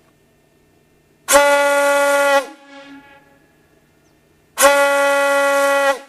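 A ship's horn (typhon-type diaphragm horn) mounted on a trailer gives two blasts, each a little over a second long, at one steady pitch. Each blast cuts off sharply and leaves a short, faint fading tail.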